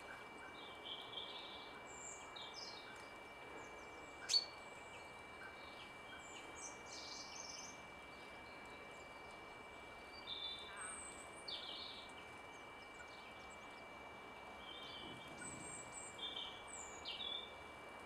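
Small woodland birds giving short, scattered high chirps and twitters over a steady hiss, with a faint steady high tone underneath. A single sharp click about four seconds in is the loudest moment.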